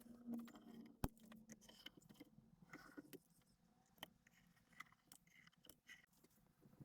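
Quiet room with faint, scattered clicks and light taps, as of small things being handled, and one sharper click about a second in.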